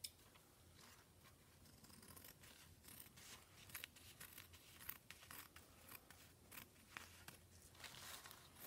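Scissors cutting through a paper towel: faint, irregular snips and paper rustles, coming more often near the end.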